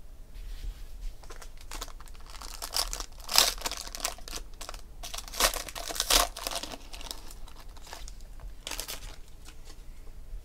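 Foil trading-card pack crinkling and tearing as it is ripped open by hand: an irregular run of crackles over several seconds, loudest in the middle, with a last crinkle near the end.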